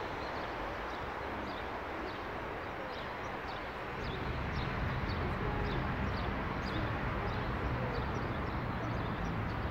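Outdoor city ambience: a steady wash of open-air noise with faint, small chirps repeating through it, and a low rumble that grows louder about four seconds in.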